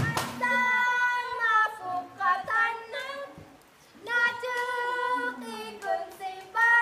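A high voice, a woman's or a child's, singing unaccompanied in long held notes: two phrases with a short pause between them.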